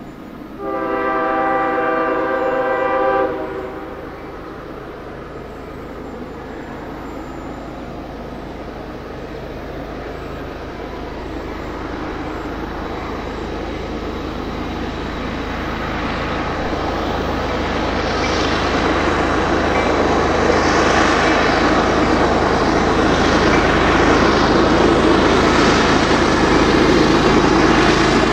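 Freight train's diesel locomotive horn sounding one blast of about two and a half seconds, then the train approaching, its engine and wheel rumble growing steadily louder.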